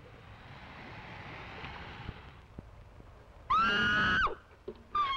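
A woman screams once, loud and high on one held pitch, for under a second about three and a half seconds in. Before it there is a fainter rushing hiss for the first two seconds or so.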